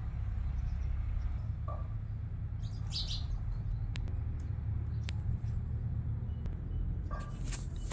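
Occasional short bird chirps over a steady low rumble.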